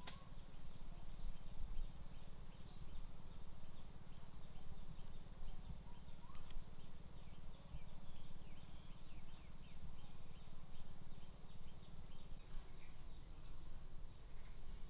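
Jungle ambience: a low steady rumble under scattered short bird chirps, with a high steady hiss coming in about twelve seconds in.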